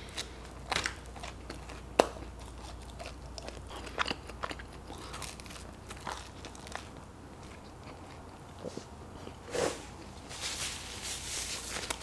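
Close-miked chewing and biting of pizza, with scattered sharp mouth clicks and short crackles. Near the end a paper napkin rustles against the mouth.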